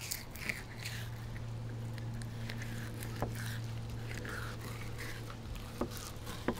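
Flexible fillet knife slicing the skin off a raw snapper fillet: soft wet scraping, with a few sharp clicks of the blade on the cutting board near the end, over a steady low hum.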